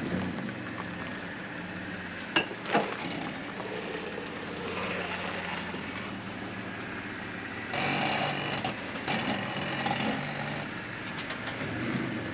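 Jeep Rubicon driving slowly over a rough trail, its engine running low and steady, with two sharp knocks about two and a half seconds in and a louder rush of noise around eight seconds in.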